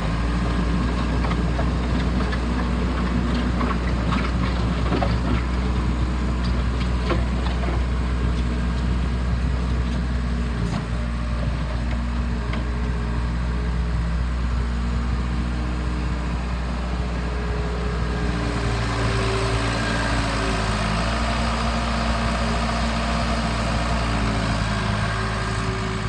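Case 445 skid steer loader's diesel engine running as the machine drives over gravel, with scattered clicks and rattles in the first several seconds. About two-thirds of the way in, the engine note rises and gets busier.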